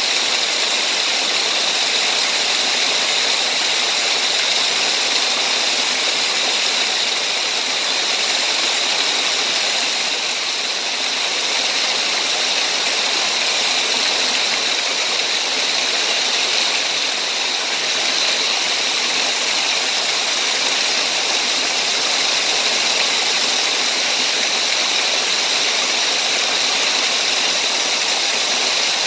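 Small waterfall splashing into a shallow rocky stream: a steady rushing and splashing of water.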